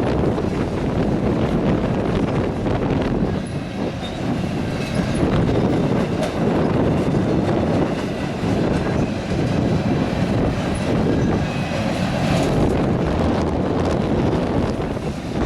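Freight train rolling past: a steady, loud rumble of steel wheels on the rails, with a faint wheel squeal over it.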